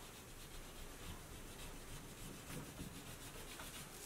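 Wax crayon rubbing on paper in faint, repeated short strokes as an area is coloured in.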